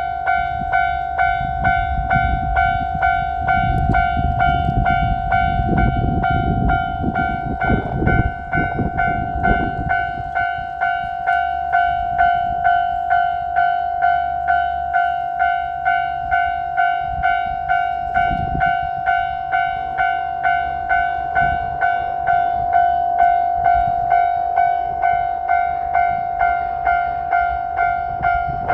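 Japanese railway level-crossing alarm ringing a single high tone over and over in an even rhythm, warning of an approaching train. A low rumble swells and fades between about four and ten seconds in.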